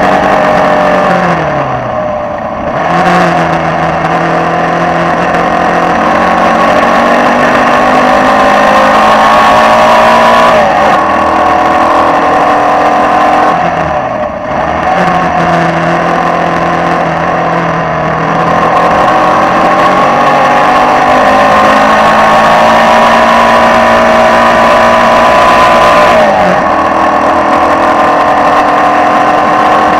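Formula Vee race car's air-cooled Volkswagen flat-four engine at racing speed, heard from the cockpit: the revs climb steadily through the gears, breaking at each shift, and the sound drops away with a sharp fall in pitch about two seconds in and again about fourteen seconds in as the car backs off and changes down.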